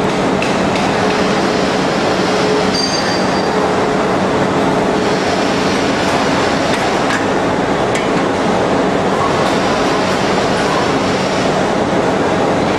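CNC shaping lathe running as it turns a porcelain insulator blank: a loud, steady mechanical noise with a constant low hum through it.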